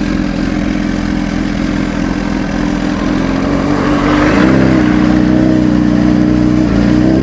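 Sport motorcycle engine running steadily at low city speed, heard from the rider's own bike. About four seconds in the revs step up a little and hold.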